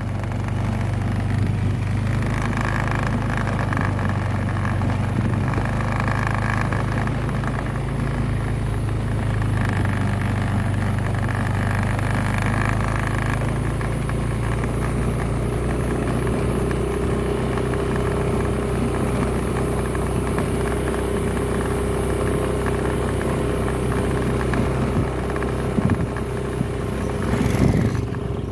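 Vehicle engine running steadily while under way, with a constant low hum. A steady higher whine joins it about halfway through.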